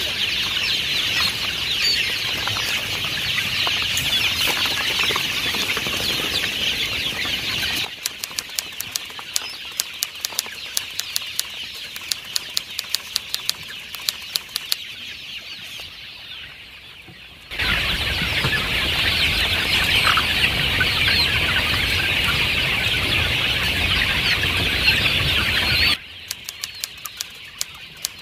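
A large flock of young ayam kampung (native village chickens) peeping and clucking all at once, a dense, busy chatter. Twice, from about 8 to 17 seconds in and again near the end, the flock noise drops away and a run of sharp, irregular clicks is heard instead.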